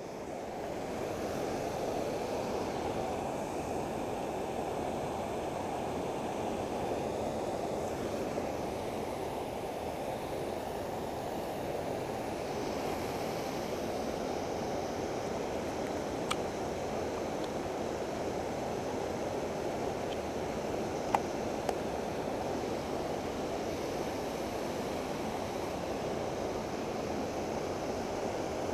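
Steady rush of creek water spilling over a low dam, with a couple of faint clicks about three-quarters of the way through.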